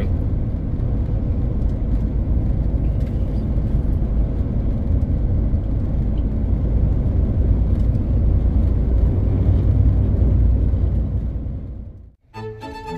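Lorry driving on the road: a steady low rumble of engine and road noise that fades out near the end, just before music starts.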